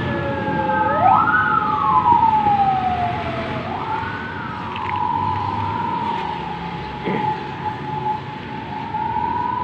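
Electronic siren wailing: its pitch sweeps quickly up and glides slowly down, twice, then settles into a steady held tone about four seconds in.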